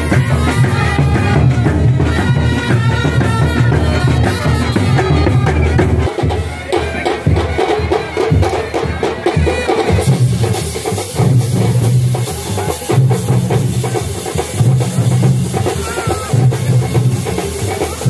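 A street brass band with a big bass drum and other drums plays a loud melody over a steady drum beat. About ten seconds in the sound changes suddenly: the melody mostly drops away and a heavy, pulsing drum beat carries on.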